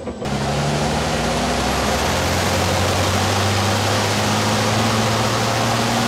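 Turbocharged diesel racing truck running at a steady engine speed on the track: a steady low engine drone under loud wind and road noise, with a thin high whistle above it.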